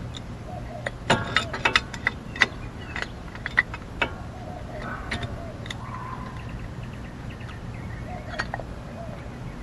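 Metal brake parts being handled: the old brake pad is set against the caliper piston, giving a cluster of sharp clicks and clinks in the first few seconds, then a few fainter ones.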